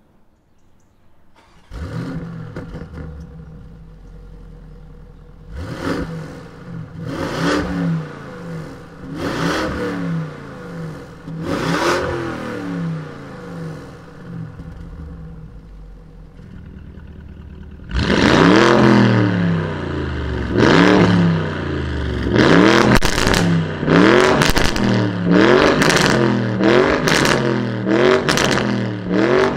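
2020 Lamborghini Urus twin-turbo V8 with a Capristo cat-back exhaust, 200-cell cats and a Stage 1 remap. It starts up about two seconds in and settles to idle, then is revved in several separate blips with the exhaust valves closed. About two-thirds of the way through it gets clearly louder with the valves open, and is revved in a fast, repeated series of blips.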